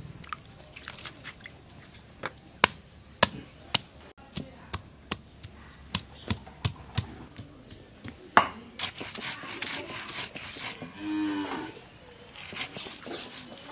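Stone pestle knocking down on garlic on a flat stone grinding slab (sil-batta), sharp knocks about two a second. About eight seconds in, the knocks give way to a rough scraping as the stone roller grinds the crushed garlic into a paste.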